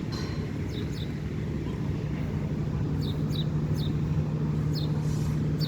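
A steady low engine drone, firming up about half a second in, with short falling bird chirps repeated over it.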